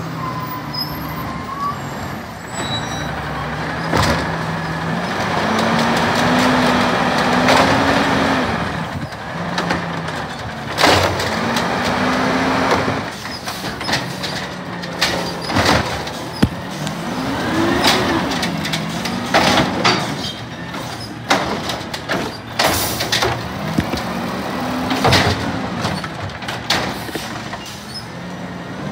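Peterbilt 320 natural-gas garbage truck with an Amrep automated side-loader arm working a recycling cart. The engine revs up and falls back about four times to drive the hydraulics while the arm grabs, lifts and empties the cart, with many clanks and bangs and a hiss of air brakes.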